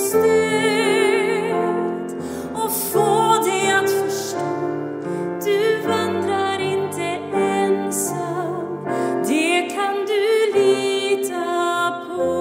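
A woman singing a slow, tender song in Swedish with vibrato, accompanied by cello and piano.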